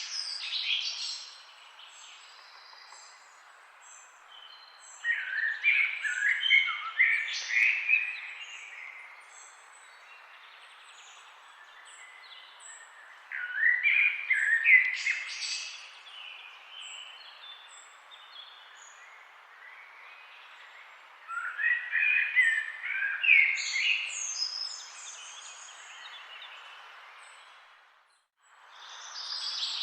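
Songbirds singing in a forest: three loud warbling song phrases about eight seconds apart, each lasting about three seconds, with short high chips from other birds in between, over a steady background hiss that briefly cuts out near the end.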